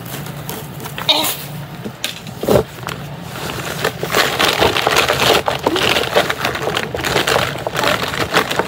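Plastic-capped markers clicking and rattling against one another in their case as a hand rummages through them to pull some out, a dense run of small clacks and scrapes that grows busier about halfway through.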